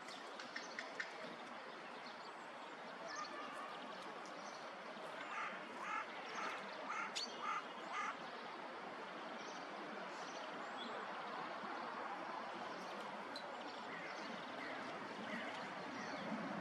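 Steady outdoor park ambience with a run of short, repeated bird calls about five to eight seconds in, and a few faint ticks near the start.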